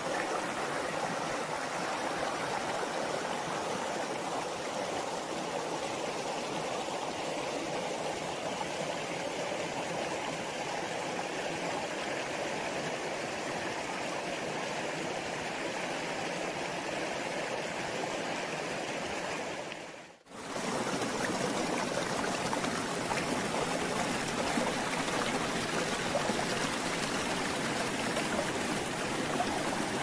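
Stream water rushing and splashing over rocks in a steady rush. About two-thirds of the way through it fades out for a moment and comes straight back.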